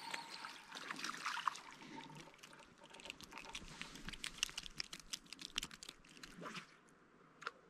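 Faint, rapid, irregular clicks and splashes, thickest from about three to six and a half seconds in, while a hooked fish is being played on a float rod.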